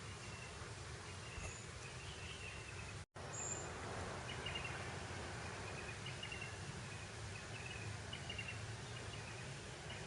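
Breeze blowing steadily over grassland, with repeated high chirps from insects or birds throughout. The sound drops out completely for an instant about three seconds in.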